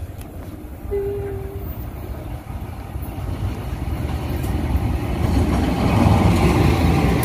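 CC 201 diesel-electric locomotive (a GE U18C) approaching and passing close by at speed with its passenger train: a low engine rumble and wheel noise that grows steadily louder and is loudest near the end as the locomotive goes past. A short, single-pitched toot sounds about a second in.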